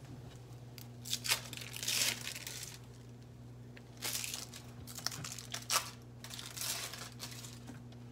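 Plastic wrapper crinkling and tearing in short bursts, as an individually wrapped slice of American cheese is peeled open, over a low steady hum.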